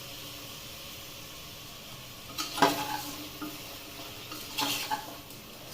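Onions and chopped tomatoes sizzling gently in oil in a pressure cooker, with a spoon stirring and scraping against the pot in two spells, about two and a half and four and a half seconds in.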